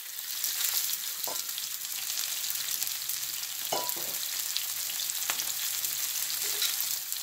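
Sausage links frying in oil in a cast-iron skillet: a steady, high sizzle. A few light metallic clicks come through as a sausage is turned with tongs.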